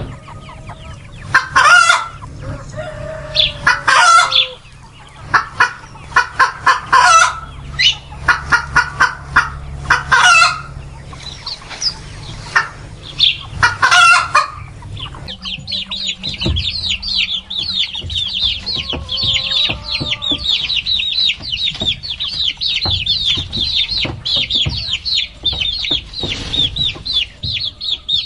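Chickens clucking and cackling in loud bursts of repeated calls. About halfway through the sound changes to a steady chorus of many chicks peeping high and fast.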